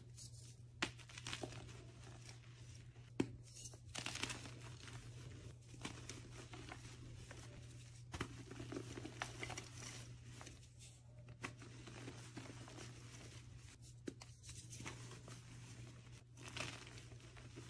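Hands crushing blocks of reformed gym chalk, the chalk crunching and crumbling into powder in irregular bursts, with a few sharp cracks as pieces snap. A steady low hum runs underneath.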